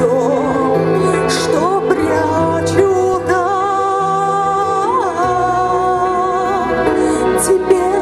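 A woman singing a song into a microphone over backing music, heard through a stage sound system. Through the middle she holds long notes with vibrato.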